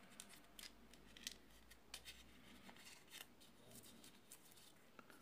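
Faint, scattered crinkles and crackles of origami paper being creased and shaped by hand, a handful of soft separate clicks.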